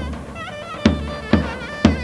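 Davul and zurna playing halay dance music: a shrill, ornamented reed melody over heavy drum beats, three of them in the second half.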